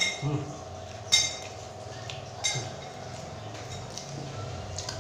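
Three short, ringing clinks of tableware, about a second apart, over a steady low hum.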